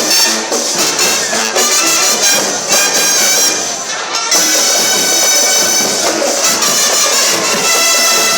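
Band music with brass and drums: drum beats under the horns, then a long held brass chord from about halfway.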